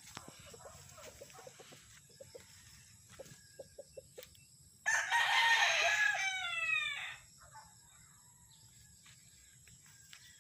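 A rooster crowing once, about halfway through: a call of about two seconds that slides down in pitch at the end.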